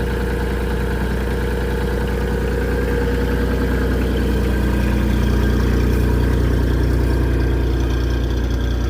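Mini skid steer's diesel engine idling steadily after starting, a little louder and slightly higher from about halfway through.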